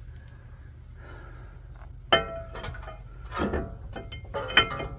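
Metal parts clinking together during brake reassembly: three sharp knocks, each with a short ring, about a second apart.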